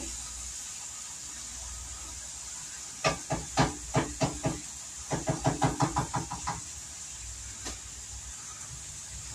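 Rapid knocking of a utensil against a cooking pan at the stove, in two quick runs about three and five seconds in and one more strike near the end, over a steady hiss.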